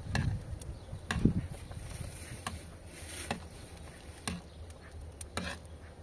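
Metal ladle stirring thick rice pudding in a heavy pot, scraping and clinking against the pot's side and bottom in irregular knocks about once a second, the loudest a little over a second in.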